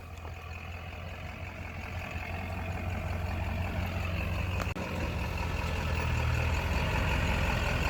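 A heavy vehicle engine running steadily at idle, growing gradually louder over the few seconds.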